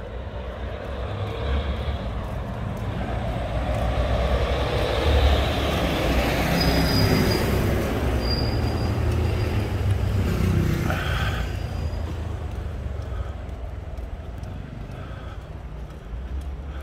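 A vehicle passes by, growing louder for several seconds and then fading away, with a thin high squeal while it is loudest.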